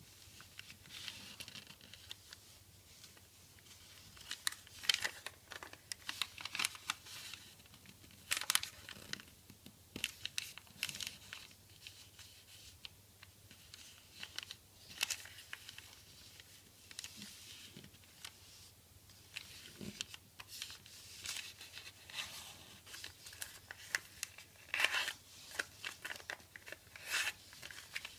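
A sheet of origami paper being folded and creased by hand: irregular short rustles and crinkles as the paper is turned over and the folds are pressed flat.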